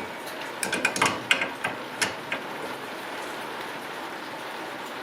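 Small metal parts clinking and clicking, about eight sharp, briefly ringing clicks in the first two and a half seconds, as handbrake shoe hardware (hold-down spring, pin and cap) is handled. A steady hiss runs underneath.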